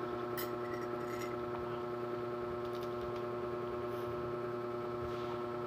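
Steady electrical hum made of several fixed tones, holding an even level throughout, with a couple of faint clicks about half a second and a second in.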